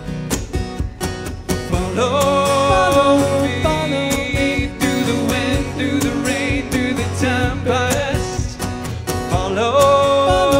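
Two acoustic guitars strummed together, with a man's singing voice coming in about two seconds in and carrying the melody over the chords.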